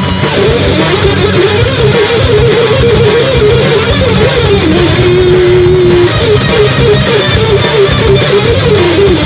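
Blackened thrash/death metal, instrumental passage: a distorted electric guitar melody winds up and down over dense drums and heavy rhythm guitar. The melody holds one note briefly about five seconds in.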